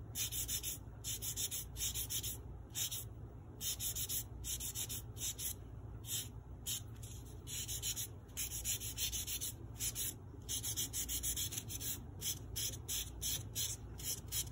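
Foam nail buffer block rubbed back and forth across the tips of natural fingernails in quick, hissing strokes, about three a second, buffing leftover product off the nail ends.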